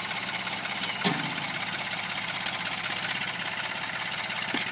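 Ford tractor engine running steadily, with a brief knock about a second in.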